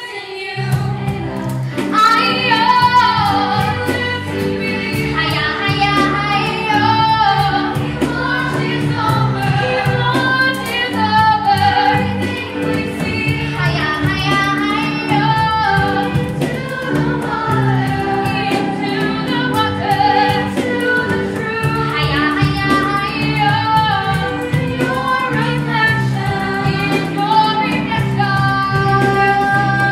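Stage musical number: a chorus of young singers, led by a female voice, singing a flowing melody over sustained instrumental accompaniment.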